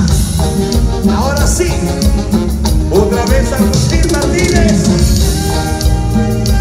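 Live grupera band playing a romantic song: drum kit keeping a steady beat, electric guitar, bass and keyboards, with a sung lead vocal over them. Recorded on a phone from the crowd.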